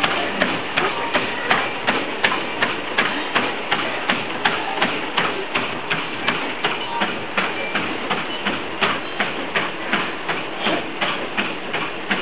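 Gym treadmill running with a toddler's bare feet on the moving belt: a steady run of thumps, about three a second, over the hum of the belt and motor.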